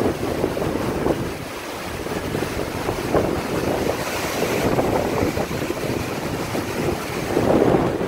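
Strong, gusty wind blowing on the microphone and through the tossing trees, with a stronger gust near the end.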